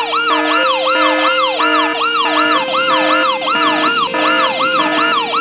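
Emergency vehicle siren sound effect: a fast yelping rise-and-fall in pitch, repeating several times a second, over a lower alternating two-note tone. It is loud and steady.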